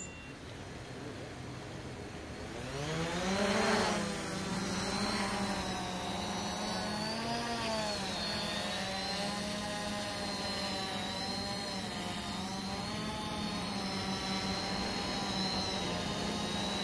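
Multirotor drone's electric motors and propellers spinning up in a rising whine about three seconds in as it lifts off, then a steady hovering whine whose pitch wavers up and down as the motors adjust.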